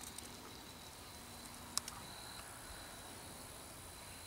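Faint outdoor quiet with a thin, steady, high insect trill, and one small click a little under two seconds in.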